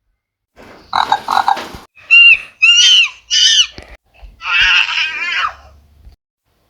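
Animal sound effect with a pig-like character: a short raspy noise, then three short high squeals that bend in pitch, then one longer wavering squeal.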